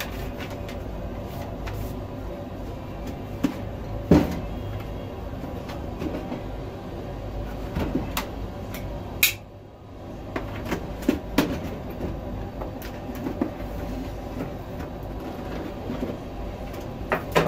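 Handling noises from unpacking a cardboard box: paper rustling, small clicks and knocks as the plastic packing strap is worked off the box top, with a sharp knock about four seconds in and one short, loud, sharp noise about nine seconds in. A steady low hum runs underneath.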